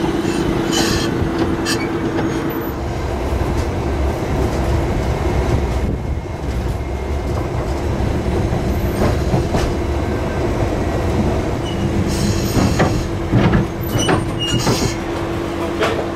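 Blackpool twin-car tram 675+685 running along the track: a steady rumble with a low motor hum, broken at the start and again near the end by clicks and short squeals of the wheels on the rails.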